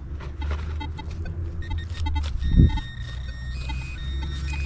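Minelab Equinox 800 metal detector giving short, regular beeps as it is swept over the ground, then holding steadier, higher tones in the second half as it picks up a target. A steady low rumble runs underneath, with one thump about two and a half seconds in.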